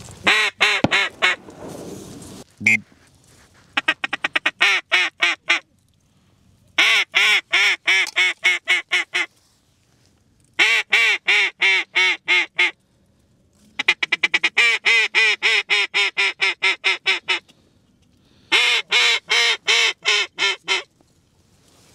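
Hand-blown duck call sounding runs of rapid quacks, six runs of about two seconds each with short pauses between, calling to circling ducks.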